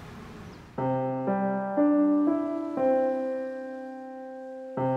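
Background music: a gentle piano-like keyboard phrase that starts about a second in, stepping from note to note every half second or so, holds one long note, then begins the same phrase again near the end.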